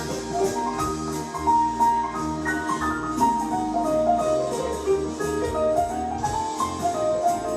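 Instrumental Christmas carol music: a melody of struck, mallet-like notes over a bass line, with a steady light beat.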